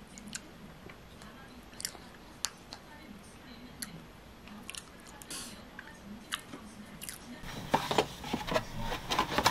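Quiet eating: a fork clicking and scraping in a clear plastic cake cup, with soft chewing. About seven seconds in, louder rustling and clatter as a boxed frying pan is handled.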